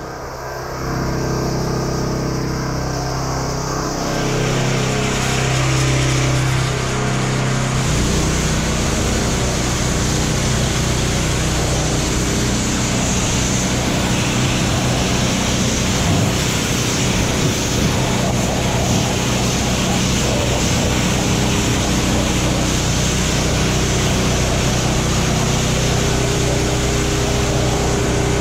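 Pressure washer running steadily, with its water spray hissing against a tow truck's wheels and body as the soap is rinsed off. The spray gets louder about four seconds in.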